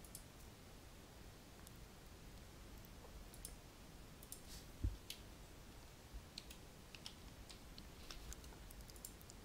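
Faint, irregular clicks of computer keys being typed, with one soft low thump about halfway through.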